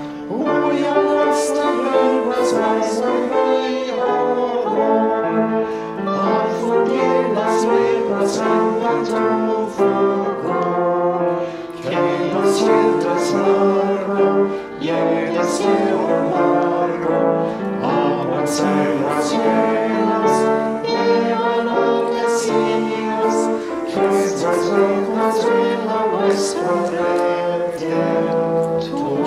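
Hymn music: a slow melody over sustained chords, continuing without clear words.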